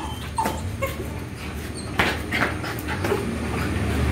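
Puppy giving a few short, high whimpers and yips while it jumps at and nips a person's hands in play-biting, with brief scuffles around two seconds in.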